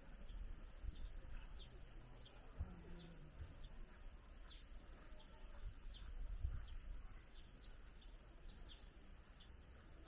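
Faint outdoor ambience: small birds chirping with short, high chirps about once or twice a second, over an uneven low rumble.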